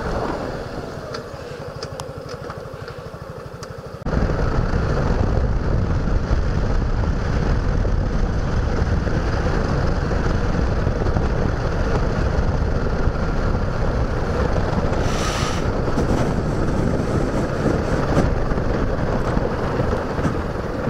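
Suzuki Gixxer motorcycle's single-cylinder engine running at low speed with a fine regular pulse. About four seconds in, the engine and riding noise get suddenly louder and stay so as the bike rides on.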